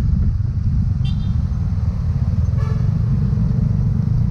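Motorcycle riding slowly through wet city traffic, heard as a heavy, steady low rumble on the handlebar-mounted camera. Two short horn toots sound, about a second in and again near three seconds.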